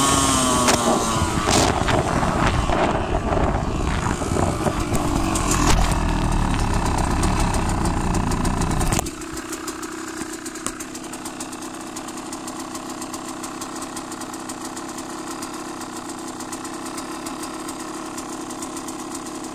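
Small vehicle engine running with rattling while the vehicle moves over gravel, then dropping suddenly about nine seconds in to a steady, quieter idle.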